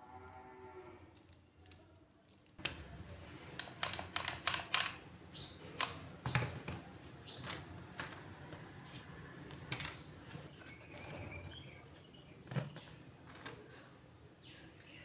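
Thin plastic strips cut from pen barrels clicking and rattling against each other and the tabletop as they are handled, an irregular run of sharp clicks that starts a couple of seconds in and thins out toward the end.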